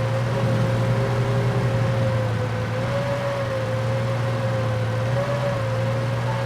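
Army tank engine running steadily: a low drone with a whine above it that wavers slightly in pitch.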